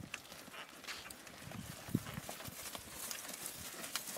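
Hoofsteps of a small herd of cattle walking on a dry dirt trail: irregular knocks and shuffling, with one sharper knock about two seconds in.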